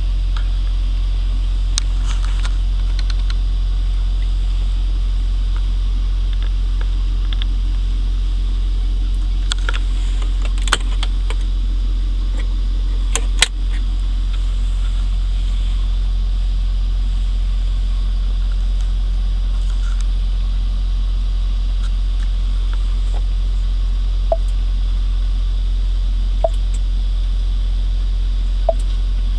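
Steady low drone of the 6.7-litre Power Stroke V8 turbo-diesel idling, heard from inside the cab. A few clicks and a knock come midway as dash controls are handled, and near the end there are three short beeps as the seat-heat buttons on the touchscreen are pressed.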